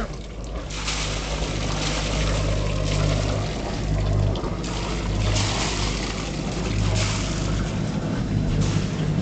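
Gusting wind noise on the microphone, swelling and fading every second or two, over a steady low engine-like hum.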